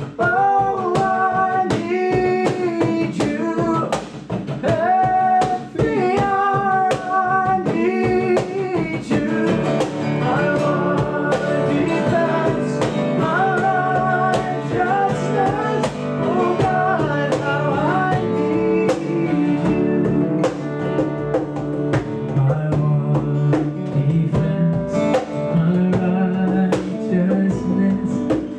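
Live acoustic worship music: male voices singing a slow song to a strummed acoustic guitar, with a steady hand-played cajón beat.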